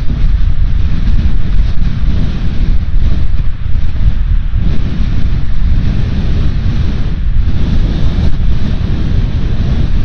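Strong wind buffeting the microphone, a loud, gusting low rumble, with the wash of ocean surf underneath.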